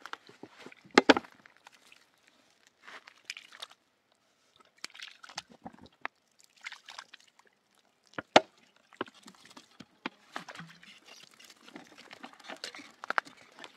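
Irregular knocks and clatters with rustling between them, as of things being handled at a camp. The loudest sharp knocks come about a second in, a quick double, and again about eight seconds in.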